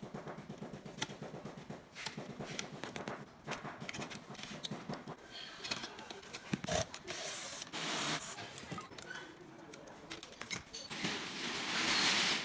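Small clicks, rubs and scrapes of hands and tools working on the welder's internal circuit board, with a couple of short hissing rushes, the longest near the end.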